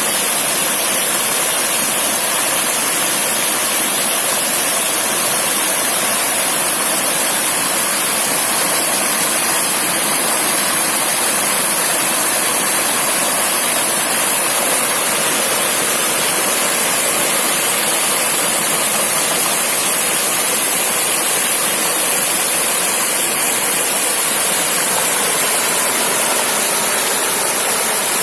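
A small river rushing over stones, a steady, unbroken water noise.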